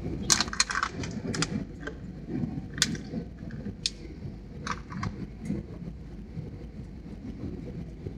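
Airbus A320 cabin on approach: a steady low rumble of engines and airflow, heard from a window seat. Over it come a dozen or so sharp clicks and crackles in the first five seconds or so.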